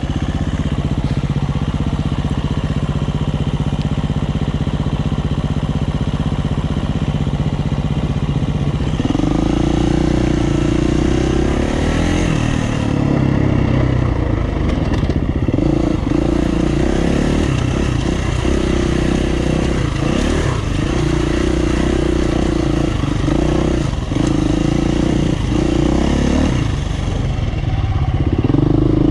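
Dirt bike engine running under the rider. It holds steady at low revs for about the first nine seconds, then pulls harder, with the revs rising and dropping again and again as the throttle is opened and closed.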